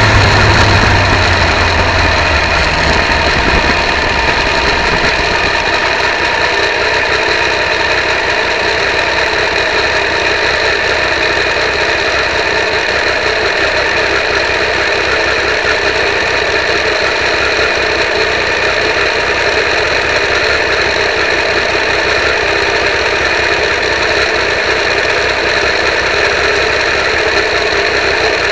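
Triumph 955i motorcycle's three-cylinder engine running at a steady road speed, with wind and road noise. The engine eases off in the first couple of seconds, then holds an even note. It is picked up by a cheap keyfob camera strapped to the foglight, so the sound is harsh and noisy.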